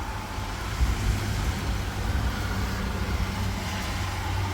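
Steady rain falling during a thunderstorm, over a constant low rumble.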